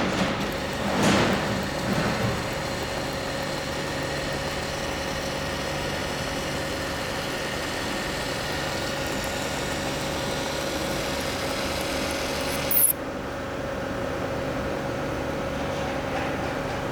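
Orbital welding equipment (AMI 307 power supply and cooler) running with a steady hum and a constant tone. There are a couple of brief louder noises in the first two seconds, and a short sharp click about 13 seconds in, after which the high hiss drops away.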